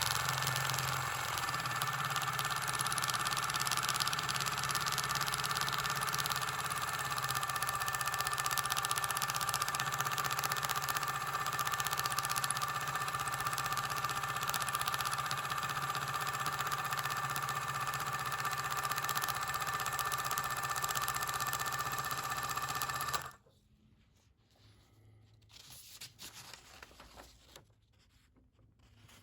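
Dot peen marking machine at work: its needle stylus hammers the part in a fast, steady mechanical buzz with a constant whine over it. It stops suddenly near the end, leaving only a few faint ticks.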